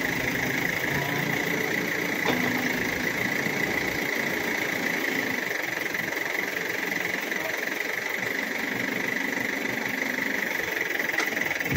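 Heavy diesel engine idling steadily, with a constant high-pitched whine over it.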